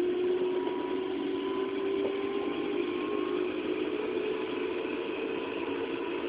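JR 211 series electric train running, heard from inside a motor car: a steady whine from the traction motors and gearing over wheel and rail noise. The whine rises slowly in pitch as the train gathers speed.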